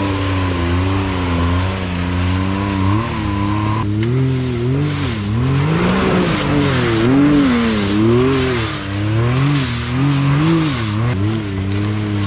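Can-Am Maverick X3 side-by-side engines revving up and down in repeated throttle bursts while climbing a steep dirt trail. A steady high whine runs alongside for the first few seconds and then stops.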